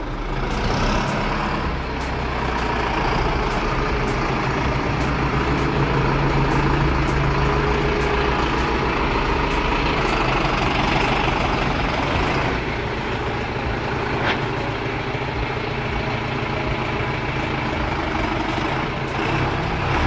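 Lovol 1104 tractor's diesel engine running steadily while the tractor drives slowly.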